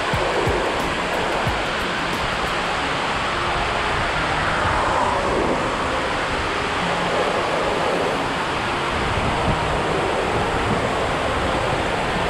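River water rushing steadily over shallow rocky rapids, an even, unbroken rush of white water.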